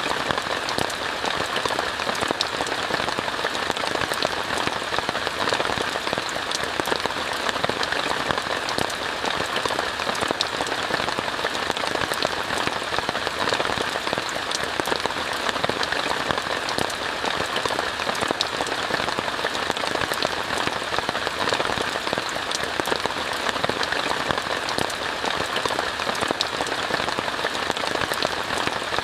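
Steady rain falling on a tent, heard from inside: an even hiss of rain with many small, sharp drop taps throughout.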